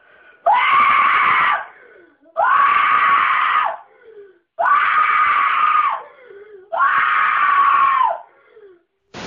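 A person screaming four times in a row, each scream loud and held for about a second, with short breaths between.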